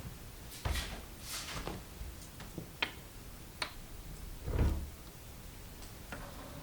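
A series of light clicks and knocks from things being handled, with one heavier thump about four and a half seconds in.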